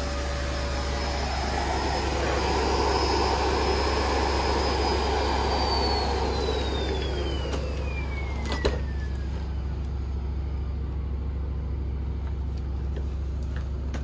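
Cirrus canister vacuum running, a high motor whine over the rush of suction, then switched off about five seconds in: the whine falls steadily in pitch as the motor winds down over the next several seconds and the rushing fades. A single sharp knock a little past halfway.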